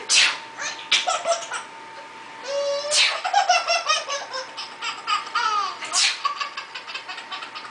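A baby's belly laughter, breaking out in rapid giggling runs right after repeated sharp sneezes, which come about every three seconds.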